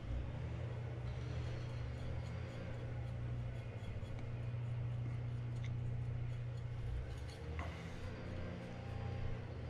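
A steady low hum, with a few faint light clicks on top.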